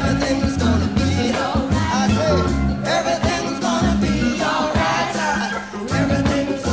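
Background music: an upbeat song with a sung vocal over a steady beat and drums.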